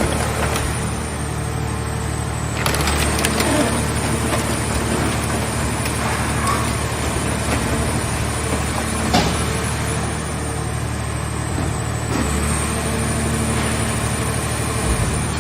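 Engine-driven hydraulic scrap car-body baler running steadily, with irregular creaking and cracking of car-body metal being crushed. There is a louder burst of cracking about three seconds in and a single sharp crack about nine seconds in.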